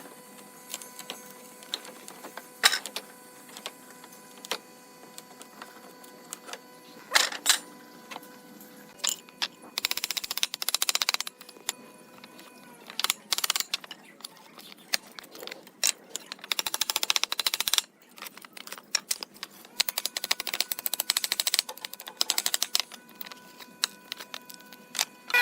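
Workshop clatter: scattered sharp knocks and taps of tools on wood. Several bursts of a rapid, buzzing rattle from a small machine or tool each last a second or two.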